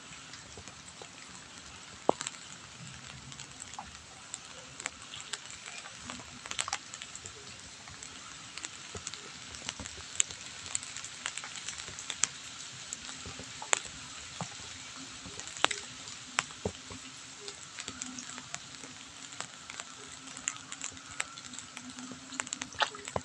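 Light drizzling rain: a steady hiss with many scattered sharper ticks of drops landing on nearby surfaces and puddles.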